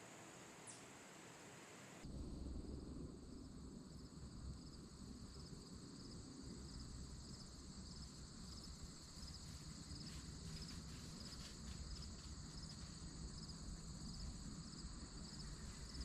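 Crickets chirping in a steady high-pitched, evenly pulsing trill, starting about two seconds in, over a faint low rumble.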